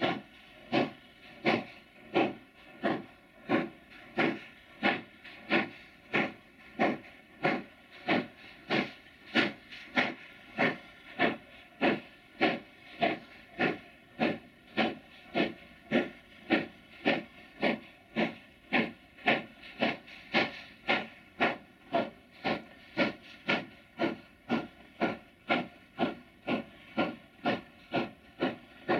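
China Railways JS class 2-8-2 steam locomotive working hard at low speed under a heavy coal-train load, its exhaust beating in a slow, even rhythm of about two chuffs a second that does not quicken.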